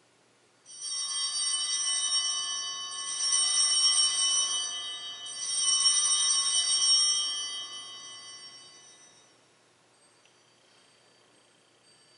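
Altar bells rung three times, about two seconds apart, each ring sustaining and then dying away over a few seconds. They mark the elevation of the chalice just after its consecration at Mass.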